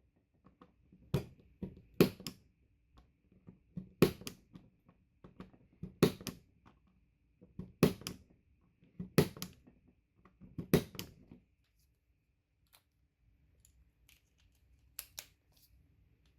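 Punch-down tool pressing wires into the slots of a small network patch panel: a series of sharp clicks, often in close pairs, about every one to two seconds, stopping about eleven seconds in, with two fainter clicks near the end.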